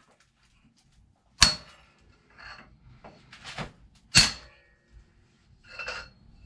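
Metal clanking from work with a long breaker bar on a Subaru EJ257 boxer engine on an engine stand. Two loud, sharp metal clanks with a short ring, about 1.5 s and 4 s in, fall among softer clinks and rattles of tools.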